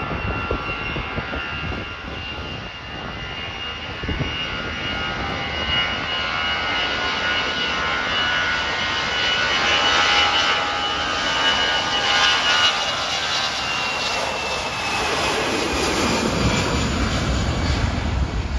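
Juneyao Airlines narrowbody jet airliner on its takeoff roll, engines at takeoff thrust: a steady high whine over a rumble, growing louder toward the middle. As the jet passes, the whine drops in pitch and a deeper rumble builds near the end.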